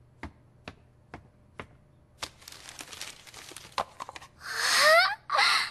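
Gift wrapping being handled and unwrapped: a few light clicks, then paper crinkling for a second or two. Near the end a girl's voice rises in a breathy exclamation, louder than the unwrapping.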